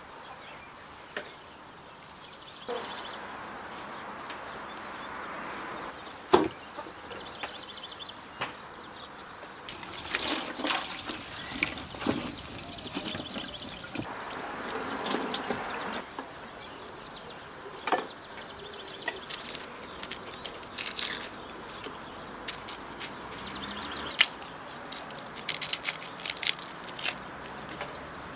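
Water poured over fresh vegetables in a metal bowl, splashing and trickling as hands rub and wash them, with occasional sharp knocks.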